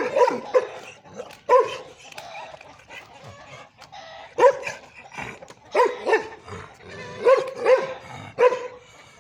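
A dog barking: about ten short, sharp barks in uneven clusters, with a couple of quieter gaps between them.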